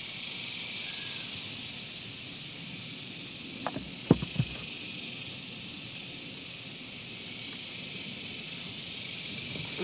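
Steady high-pitched insect chorus droning without a break. A few sharp clicks of a metal hand tool come about four seconds in, as pliers are picked up and handled.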